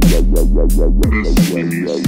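Intro music: electronic dance music with a deep kick drum and a pulsing synth bass. The low bass drops out about one and a half seconds in, leaving a short break.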